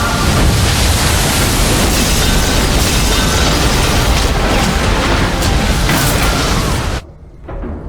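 Film sound effect of a glass dome imploding and seawater flooding in: a loud, dense crash and rush of water with a deep rumble, which cuts off suddenly about seven seconds in, leaving a quieter low sound.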